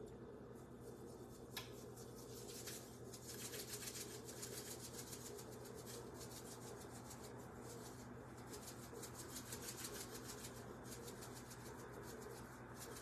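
Pepper being put onto vegetables: a fast, even, dry rasping tick that starts about two and a half seconds in, pauses briefly a couple of times and carries on, over a steady low hum.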